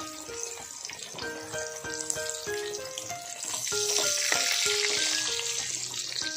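Fish steaks sizzling as they shallow-fry in hot oil in a wok; the sizzle swells louder a little past halfway. Background music with a light plucked melody plays throughout.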